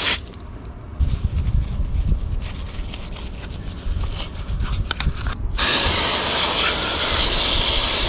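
A bristle brush scrubs a plastic carburetor float bowl. About five and a half seconds in, a garden-hose spray nozzle comes on with a loud, steady hiss to rinse it.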